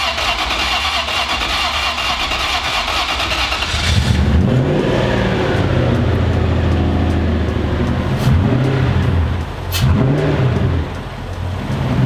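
The drift pickup truck's engine being started: the starter cranks it for about four seconds, then the engine catches and runs, its pitch rising and falling a couple of times. This is the first start after the engine was pulled and refitted, and the repaired starter works.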